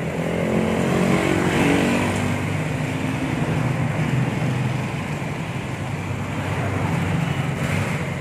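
Road traffic passing: a motor vehicle's engine rises in pitch over about the first two seconds, over a steady traffic hum.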